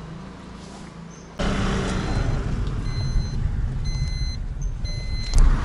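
Inside a moving taxi: a steady low road and engine rumble starts abruptly after a second of quieter street background. About three short electronic beeps sound roughly a second apart midway, and there is a low thump near the end.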